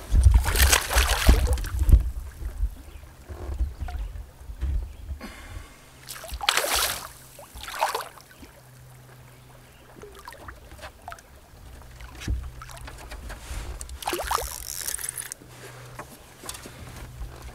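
Water splashes and handling noises from a solo canoe as a hooked bass is played on a fishing line. The splashes come in short bursts several seconds apart, with wind gusting on the microphone in the first couple of seconds.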